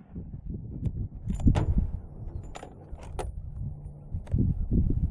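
Short metallic clicks and scrapes of a Thompson Center Venture bolt-action rifle's bolt being worked after a shot, opening, drawing back to eject the spent .300 Win Mag case and closing again, over a low rumble.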